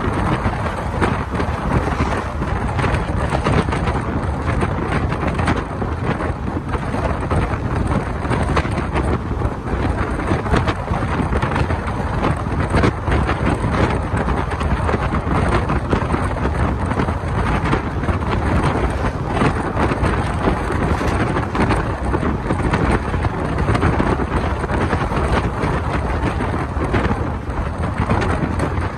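Steady rushing noise of a passenger train running at speed, heard from outside its coach: wind buffeting the microphone over the rumble of the wheels on the rails.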